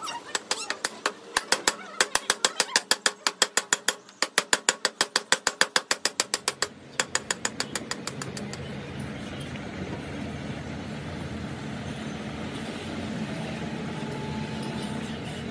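Ratchet wrench clicking rapidly as it turns the threaded cap of a tie rod end held in a vise: two fast runs of clicks with a brief pause about four seconds in, slowing and stopping about eight seconds in. After that a steady low hum carries on.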